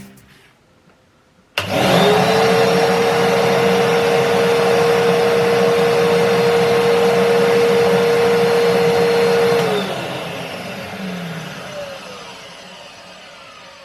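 Kärcher WD2 wet and dry vacuum cleaner's 1000 W motor switched on about a second and a half in, spinning up quickly to a loud, steady whine with a rush of air. It runs for about eight seconds, then is switched off and winds down with a falling whine that fades away.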